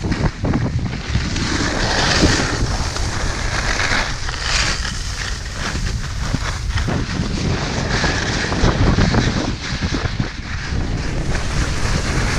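Wind buffeting the microphone of an action camera moving downhill at speed, over the hiss and scrape of snow being carved on a groomed piste. The snow hiss swells a couple of times, about two and four and a half seconds in.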